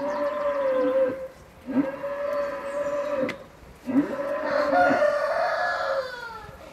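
Rooster crowing: three long, drawn-out calls in a row, each opening with a short rise and holding a steady pitch. The last is the longest and trails off.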